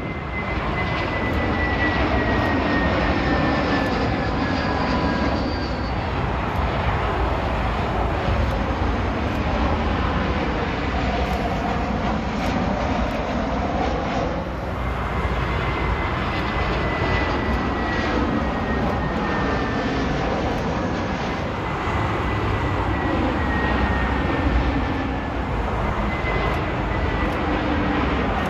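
Jet airliner engines at close range: a steady rumble with a high engine whine that glides slowly down in pitch as each aircraft passes. It dips briefly about halfway, then a second jet comes in with the same falling whine.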